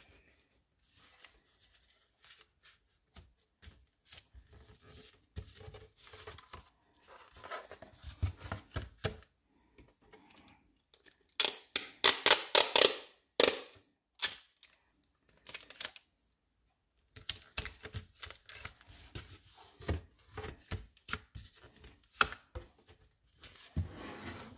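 Packing tape pulled off a handheld tape dispenser in a quick run of rips and torn off, about halfway through. Around it, soft rustling, sliding and tapping of cardboard pieces being handled on a shelf.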